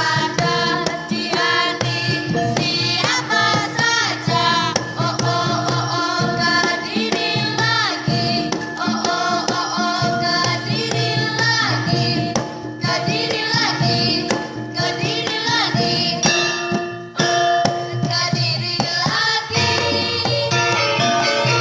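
Traditional-style music: a singing voice with wavering pitch over hand drums and other percussion.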